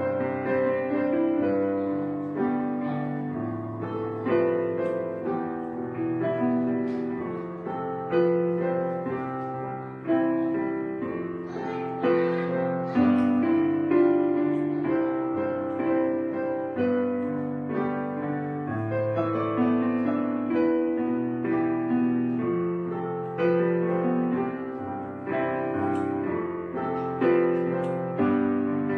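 Solo piano music: notes and chords struck and left to ring and fade, a fresh strike every second or two.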